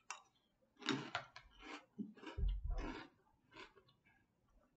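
A mouthful of chocolate cereal in milk being chewed: a string of short, quiet crunching and wet clicking sounds, with a low thud about two and a half seconds in.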